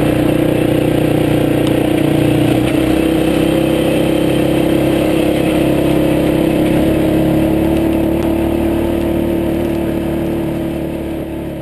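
Dirt bike engine running at a steady, unchanging pitch while riding, fading out near the end.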